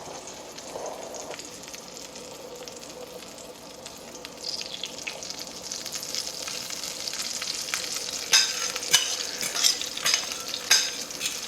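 Beaten duck egg and cheese mixture sizzling as it is poured over a hot roasted cauliflower in its baking dish. The hiss grows about four seconds in, with sharp crackles near the end.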